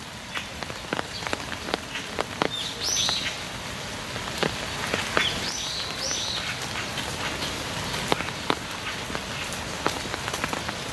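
Light rain with scattered drips ticking irregularly, and a bird chirping a few short high calls about three seconds in and again around five to six seconds in.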